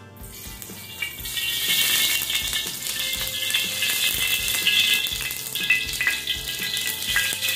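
Cooking oil sizzling steadily in a hot steel wok, starting just after it is poured in and building over the first second, with light background music underneath.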